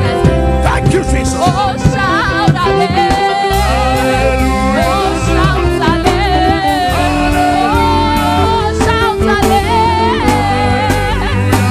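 Gospel worship music played live: a singer holds and bends long, gliding notes over steady sustained chords and a deep bass line.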